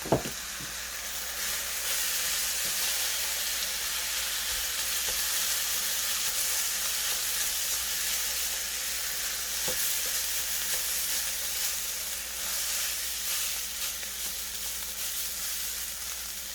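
Cooked rice frying in hot oil in a pan, sizzling steadily with soy sauce and fish sauce just added, and stirred with a few light scrapes of the utensil. A sharp knock right at the start.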